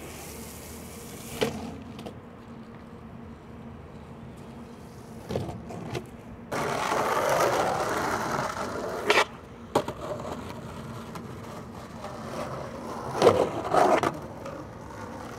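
Skateboard wheels rolling on concrete, with sharp clacks of the board being popped and landed. The longest roll comes about halfway through, and the loudest clacks come near the end.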